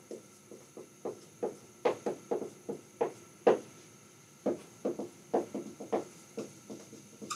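Dry-erase marker tapping and stroking on a whiteboard as words are written: an irregular run of short, sharp taps, with a brief pause a little past the middle.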